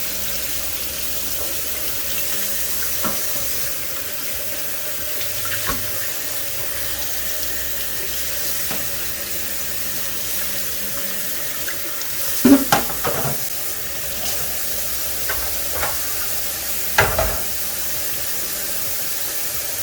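Hot water running steadily from a kitchen tap to rinse out a humidifier part that does not come out. A few knocks and clunks against it partway through.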